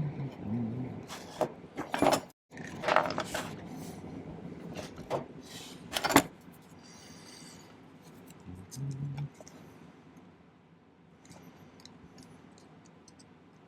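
Scattered metallic clicks and clinks of jewellery tools and a sterling silver wire ring being handled and bent into spirals. They are busiest in the first six seconds and then fall to a few faint ticks.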